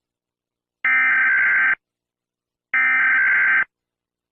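Emergency Alert System SAME header tones: two short data bursts, each nearly a second long, with about a second of silence between them.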